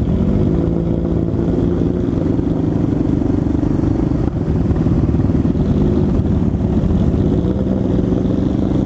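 Suzuki DR650 supermoto's single-cylinder engine running at a steady cruising speed, heard from the rider's seat with wind rush over the helmet camera.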